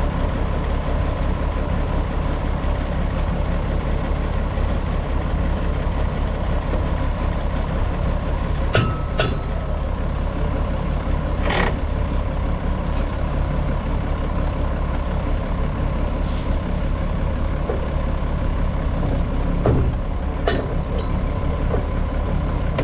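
Tractor engine running steadily at idle, with a few sharp metal clanks from hitching the bush hog to the three-point linkage.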